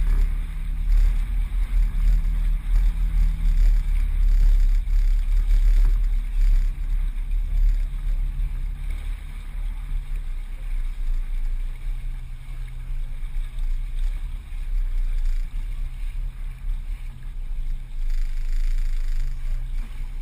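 Wind buffeting the microphone aboard a sailboat underway: a steady low rumble that rises and falls, with the rush of water along the hull.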